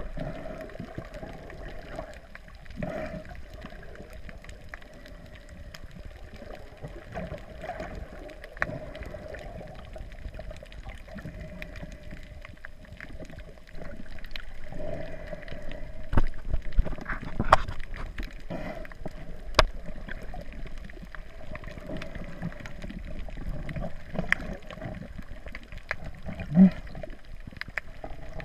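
Muffled underwater sound as heard through a GoPro's waterproof housing: water gurgling and sloshing against the case. Scattered clicks and knocks run through it, busiest a little past the middle.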